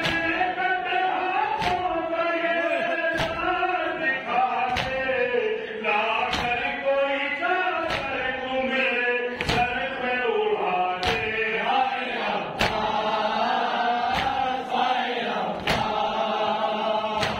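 Male voices chanting a noha, a Shia lament for Muharram and Safar, in a slow melodic recitation. Sharp, even strokes land together about every second and a half, the rhythm of the anjuman's matam (chest-beating) that keeps time with the noha.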